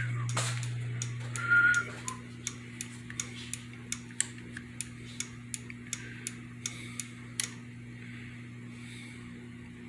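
A steady low hum under a quick, even run of sharp ticks, about three a second, that stops about seven and a half seconds in.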